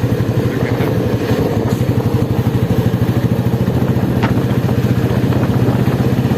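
Royal Enfield Bullet's single-cylinder four-stroke engine idling steadily with an even, rapid thump-thump beat.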